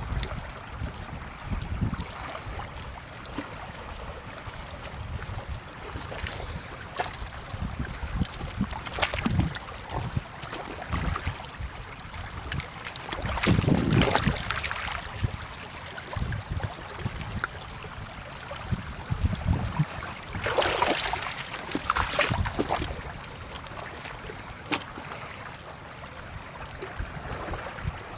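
Shallow floodwater splashing and sloshing, with a low rumble of wind on the microphone. There are louder splashes about 13 seconds and 21 seconds in.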